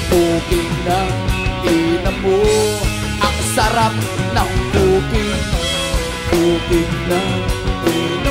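Live rock band playing an instrumental break: an electric guitar plays a bending lead melody over bass guitar and drums.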